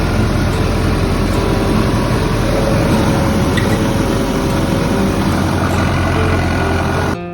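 An engine running steadily with a low rumble, cut off abruptly near the end.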